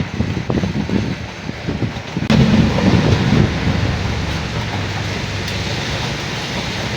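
Steady rain hiss with irregular low rumbling. About a third of the way in it jumps suddenly louder, then settles into an even rush.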